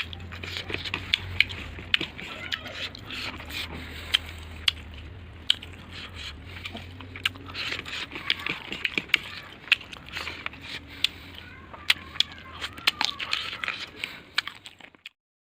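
Close-up crunching and chewing of crisp fried bitter gourd, with many sharp crunches over a low steady hum; the sound cuts off suddenly near the end.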